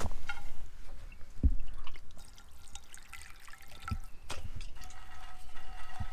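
Water splashing and trickling in a cast iron skillet, with a few dull thumps of steps or handling on the leaf litter. A steady whistling tone comes in about five seconds in.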